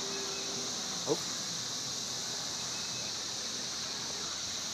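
Steady high-pitched drone of insects, such as cicadas or crickets, with one brief rising call about a second in.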